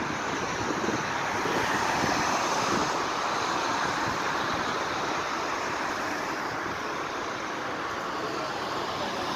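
A car driving past on the street, its road noise swelling to a peak about two seconds in, then settling into a steady traffic hum.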